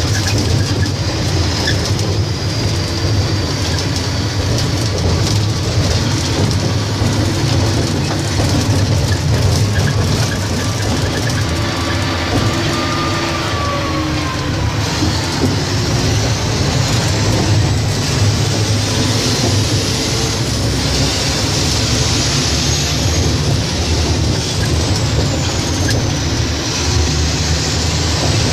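Heavy mining haul truck running on the move: a loud, steady low engine and drivetrain rumble. A faint high whine rises and falls through the second half.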